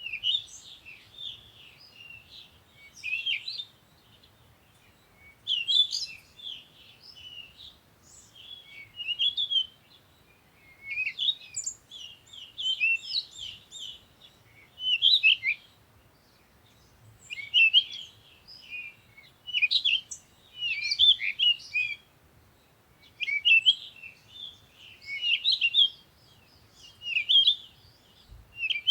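Wild songbirds chirping and singing in quick bursts of high, sweeping notes, coming every second or two with short pauses between.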